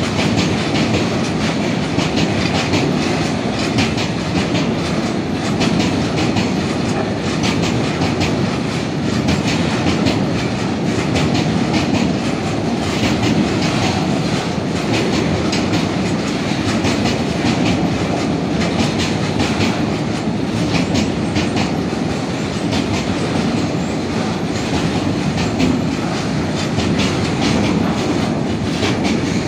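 Steel wheels of a long freight train of bogie tank wagons rolling past close by: a steady rumble with a continuous clickety-clack of wheels over the rail joints.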